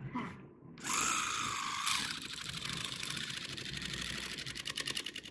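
Electric carving knife switched on about a second in, its motor whining briefly and then running with a steady rapid clatter of the reciprocating blades as they saw through the pumpkin.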